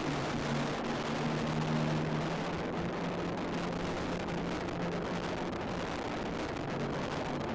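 A steady, loud rushing noise with no distinct events, over low sustained tones.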